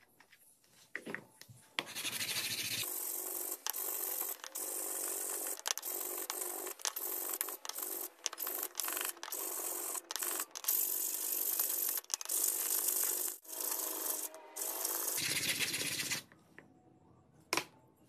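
A small wooden star being hand-sanded with abrasive paper in repeated rasping strokes. The sanding starts about two seconds in and stops shortly before the end, with a few brief pauses. A single sharp tap comes near the end.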